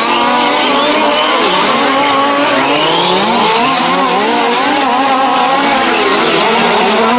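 Several 1:5-scale RC cars' small two-stroke petrol engines running together, each at its own pitch and revving up and down as the cars accelerate and brake around the track.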